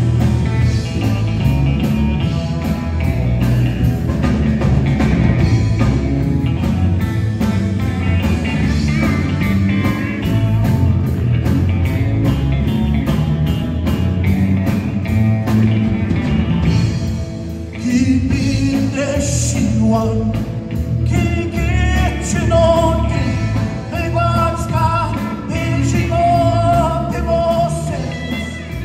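Live band playing an amplified blues-rock song on acoustic guitar, electric guitar and bass guitar.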